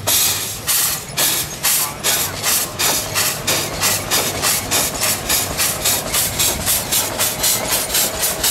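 Antique steam traction engine chuffing: sharp puffs of exhaust steam from the stack, spaced out at first and quickening steadily to about four a second as the engine picks up speed.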